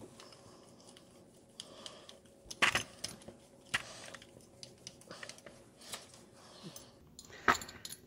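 Screwdriver turning a small screw into the metal mounting bracket of a mobility scooter's control pad: faint scraping with a few sharp clicks, the loudest about two and a half seconds in and again near the end.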